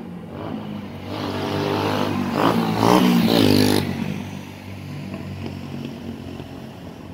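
A motor vehicle driving past close by, its engine rising in pitch as it speeds up. It is loudest about three seconds in and fades out within a second. A steady low hum runs beneath it.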